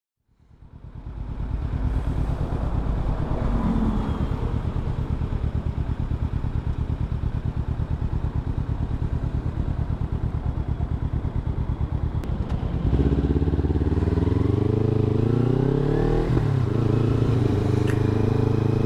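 Motorcycle engine running on the road, fading in from silence. About 13 seconds in its pitch climbs as the bike accelerates, dips briefly around 16 seconds, then holds steady.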